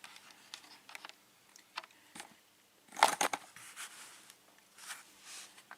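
Lock-picking tools being handled at the lock: scattered small metal clicks and scrapes, with a brief cluster of clatter about three seconds in.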